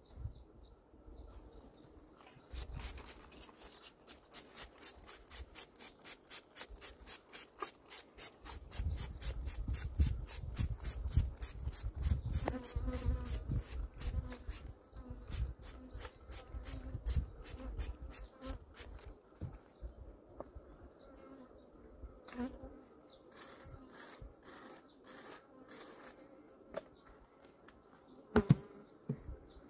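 Hand trigger spray bottle squirted in quick repeated squeezes, about four a second, wetting the empty comb cells of a hive frame with water, over the buzzing of honeybees. The steady spraying stops about two-thirds of the way through, and only a few scattered squirts follow.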